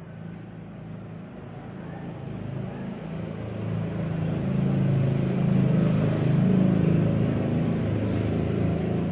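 A low motor-vehicle engine hum that grows steadily louder over the first half, then holds.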